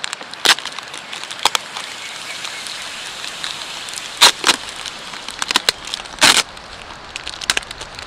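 A small camp fire under a grill grate crackling, with irregular sharp pops over a soft, steady hiss; the loudest pops come about four and six seconds in.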